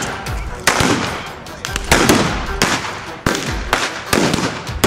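Old West-style guns firing blanks in a staged shootout: about eight sharp gunshots at uneven intervals, each with a brief echo.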